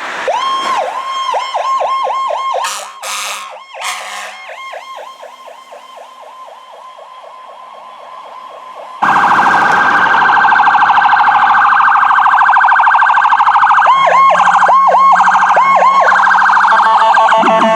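Emergency-vehicle electronic siren sounding the Powercall tone, its pitch dipping and springing back over and over, with two short loud bursts about three seconds in, then fading away. About nine seconds in, a second, much louder siren starts abruptly with a fast warble, breaking into a few dipping Powercall sweeps near the end.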